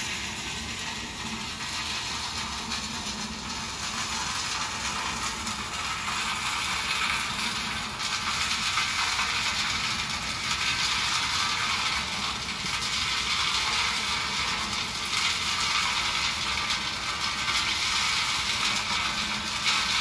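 Fishing-port ice plant running: a steady mechanical noise that gets louder about eight seconds in, as ice is sent down a hanging hose into a bin.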